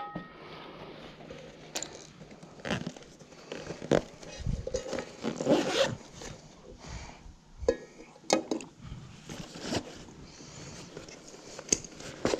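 Intermittent rustling, scraping and clicking of objects being handled, with short sharp clicks about 8 s in.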